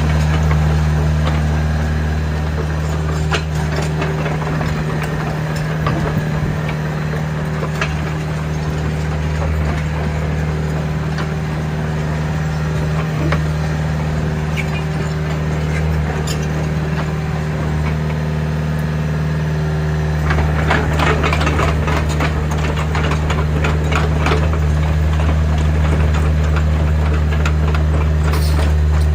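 Doosan DX60-9C mini excavator's diesel engine running steadily. From about twenty seconds in, a run of rattling and clicking joins the engine.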